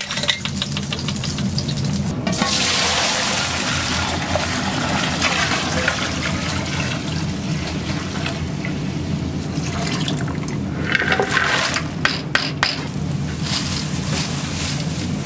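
Water pouring in a steady stream into a large aluminium stockpot of dark broth liquid, splashing as it fills. A few sharp clicks and rustles come near the end.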